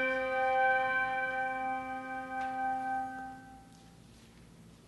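A bell struck once, ringing out with several clear overtones and fading away over about four seconds. It is rung once for each name read in a memorial roll of the dead.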